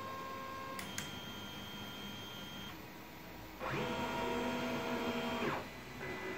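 Anet A8 3D printer's stepper motors whining in steady tones as it prints, with a click about a second in. About three and a half seconds in, a louder two-second stretch of tones rises, holds and falls away as the print head travels across the gantry.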